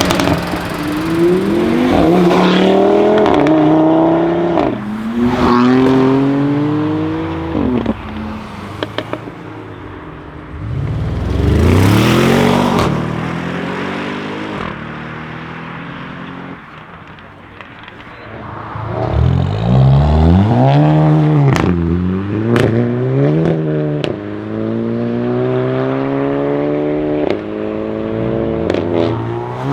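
Hyundai i30 N turbocharged 2.0-litre four-cylinder engines accelerating hard again and again, each pull rising in pitch before breaking off. Sharp exhaust crackles and pops come between pulls, most of them in the last third.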